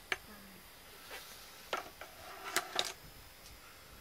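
A few light clicks and knocks, about five in all, with two close together in the second half.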